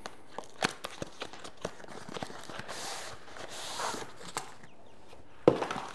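A small cardboard box being opened by hand: a run of light taps and clicks of cardboard, then a rustling scrape as a fabric carry bag is slid out of it, and one sharp knock near the end.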